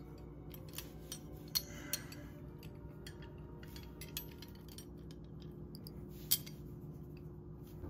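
Hand crimping pliers squeezing metal crimp sleeves onto a heavy monofilament leader: a scattering of faint metallic clicks and clinks, the sharpest about six seconds in, over a steady low hum.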